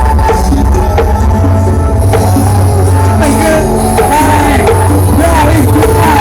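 Loud music with heavy sub-bass played through Brawijaya Audio's carnival sound-system rig with eight subwoofers, with a melody line of gliding notes above the bass.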